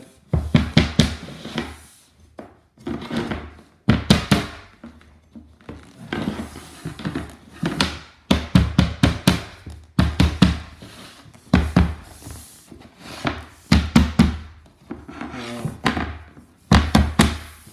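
Repeated taps on a metal pull bar, knocking the last laminate floor board sideways into its groove. The knocks come in quick clusters of several taps, with short pauses between, all through.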